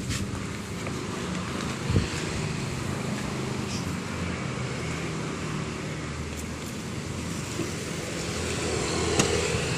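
Roadside traffic with a steady engine hum, and a motorcycle passing near the end. There is a single thump about two seconds in.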